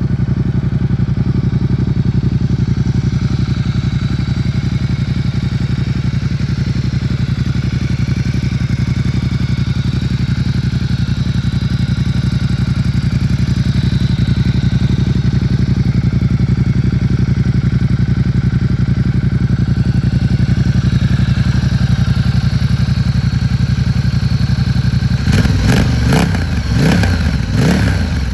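Ducati Diavel 1260 S's Testastretta DVT L-twin idling steadily, then blipped through a few sharp throttle revs about 25 seconds in.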